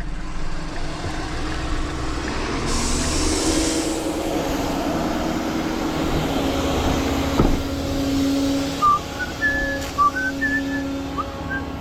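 Flatbed tow truck running, with a steady whine that comes up about three seconds in and holds. Short high chirps sound in the last few seconds.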